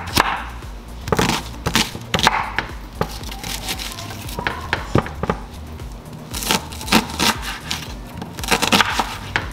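Kitchen knife chopping a white onion on a wooden cutting board: irregular sharp knocks of the blade on the board, some in quick runs of two or three, with short pauses between. Background music plays underneath.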